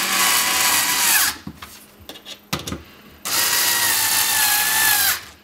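Black+Decker cordless screwdriver driving the screws of the dishwasher circulation pump's retaining clip: two runs of motor whine. One ends about a second in and the other starts a little after three seconds. The pitch sags just before each run stops.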